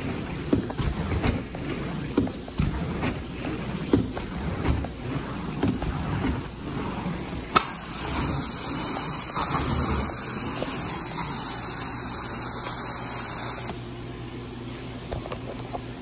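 Carpet-cleaning equipment running, with irregular knocks and bumps. About halfway through, a loud steady hissing rush starts suddenly, then cuts off abruptly near the end, leaving a quieter steady hum.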